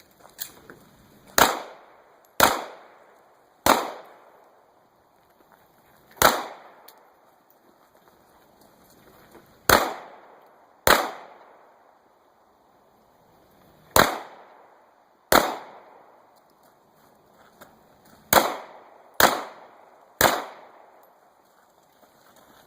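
Pistol fired in single shots during a match stage: eleven loud shots, each with a short echo, spaced unevenly between about one and three and a half seconds apart as the shooter moves between targets, with a fainter pop near the start.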